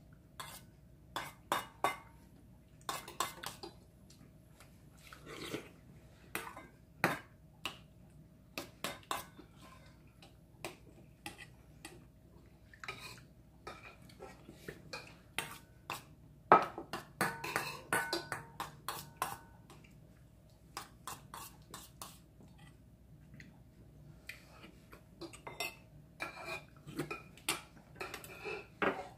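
Metal spoon clinking and scraping against stainless steel bowls while eating, in scattered sharp clicks at an uneven pace, the loudest about halfway through.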